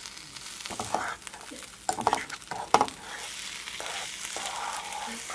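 Spinach frying in a pan and being stirred: a steady sizzle, with a few sharp knocks of the utensil against the pan in the first three seconds.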